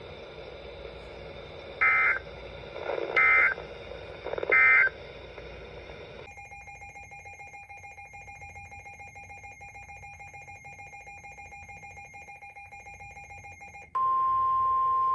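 Three short bursts of SAME digital data, the end-of-message code that closes an Emergency Alert System weather warning, about a second apart. After several seconds of faint steady hum, the loud steady 1050 Hz NOAA Weather Radio warning alarm tone starts near the end, announcing the next alert.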